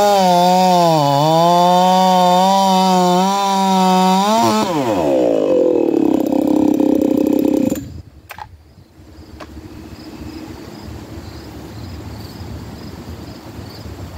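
Ported 50cc Echo two-stroke chainsaw cutting through a log at full throttle, its pitch dipping and recovering under load in the cut. About four and a half seconds in the throttle is released and the engine winds down to a rough idle, then it is shut off abruptly about eight seconds in, leaving only a faint steady background.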